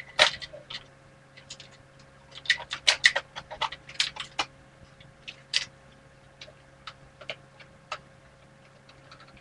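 Plastic clicks and rattles from a Nerf foam-dart blaster being handled and worked: a quick run of sharp clicks in the first half, then a few sparser single ticks.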